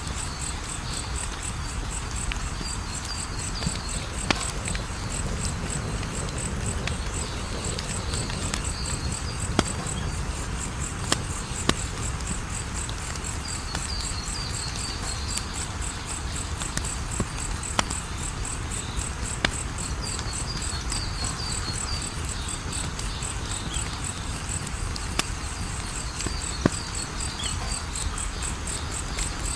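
Wood fire crackling, with a steady low rumble and scattered sharp pops, about a dozen over the stretch. A cricket chirps in a fast, even pulse throughout, with short runs of higher chirping every few seconds.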